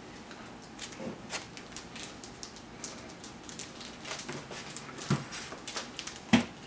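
Paper comic books being handled on a table: covers and pages rustling and sliding, with scattered light taps and two louder knocks near the end as a book is set down against the others.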